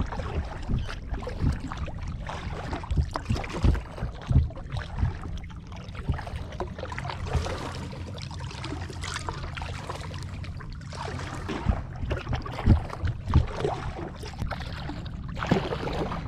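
Kayak paddle strokes dipping and splashing in the water, irregular soft splashes about once a second, over a steady low rumble of wind on the microphone.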